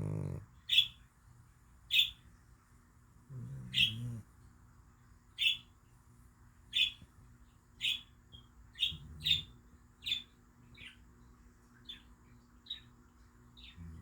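A cat snoring in deep sleep: low, rough snores every four to five seconds. A bird chirps sharply about a dozen times over the top of it, roughly once a second and a little quicker toward the end; the chirps are the loudest sound.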